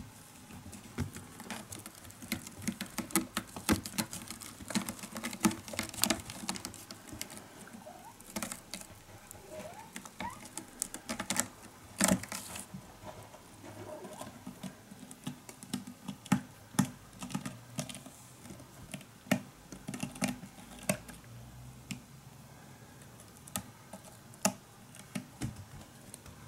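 Kittens' paws and claws pattering, tapping and scratching on a cat tower with sisal-rope posts and carpeted platforms: a rapid, irregular run of small clicks and taps, loudest about twelve seconds in.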